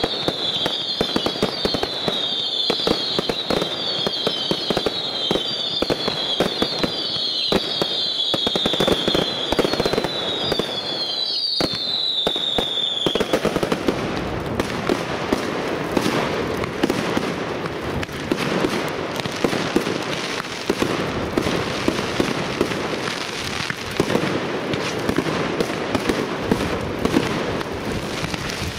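Professional firework display: dense, continuous crackling and banging of bursting shells and cakes. For roughly the first half, a quick succession of whistles sounds over it, each falling slightly in pitch. After the whistles stop, the crackling and bangs carry on.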